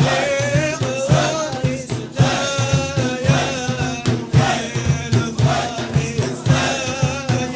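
Group of voices chanting a Sufi Naqshbandi zikr, with long wavering held notes over a quick, steady low rhythmic pulse.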